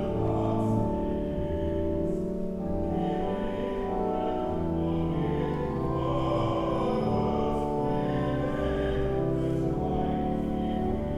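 Church music: a classical-style solo voice singing over sustained organ chords.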